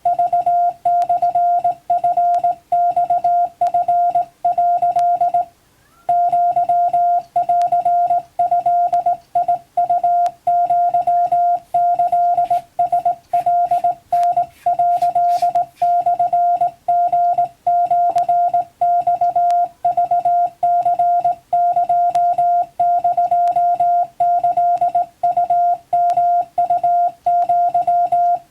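Morse code (CW) tone keyed on and off in dots and dashes, sending Japanese wabun Morse practice text. It is a single steady pitch with a faint low hum underneath, and the keying pauses for about half a second some five seconds in.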